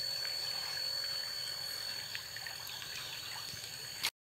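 Outdoor ambience: faint trickling water under a steady high-pitched tone, with scattered small clicks. It cuts off suddenly about four seconds in.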